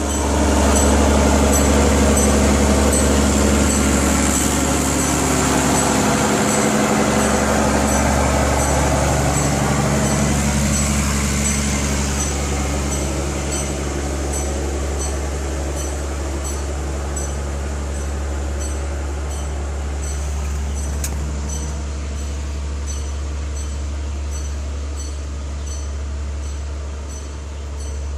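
A 1960s Caterpillar 12E motor grader's diesel engine runs while it reverses, and the small bell mounted on its wheel, its backup alarm, dings at an even pace as the wheel turns. The sound grows gradually quieter.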